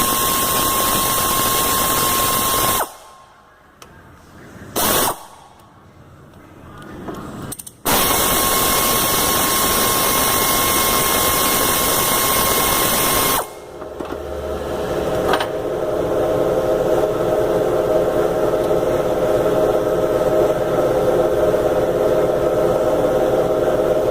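Pneumatic wrench with a Torx T30 socket running in bursts as it spins out timing-cover bolts: a loud air hiss with a steady whine. There is one long run, a short blip about five seconds in, and another long run in the middle. Over the last ten seconds a steadier buzzing hum builds up.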